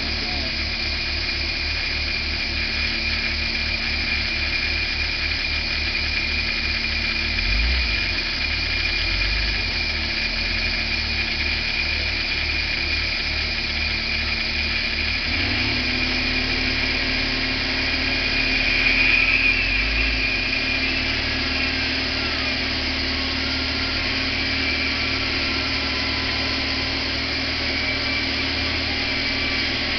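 Excavator engine running steadily under a constant high whine. The engine note steps up slightly about halfway through, and there is a brief louder swell about two-thirds of the way in.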